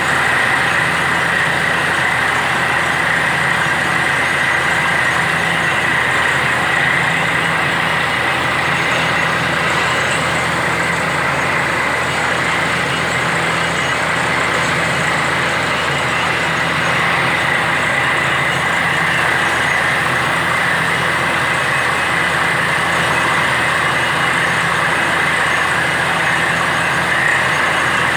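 Truck-mounted borewell drilling rig running steadily and loudly while drilling, with the hiss of compressed air flushing water and rock cuttings out of the borehole mixed into the engine noise.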